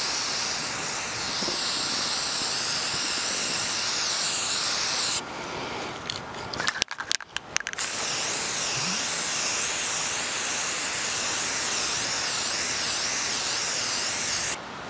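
Aerosol can of spray primer hissing in a steady spray. It stops about five seconds in, a few clicks follow, and then it sprays again for about seven seconds, cutting off just before the end.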